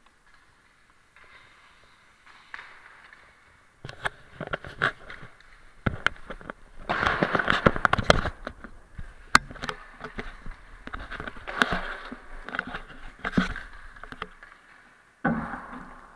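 Close handling noise from an action camera being set up and mounted: irregular sharp clicks and knocks with rubbing and scraping on the housing, densest about seven to eight and a half seconds in, and a sudden scrape near the end.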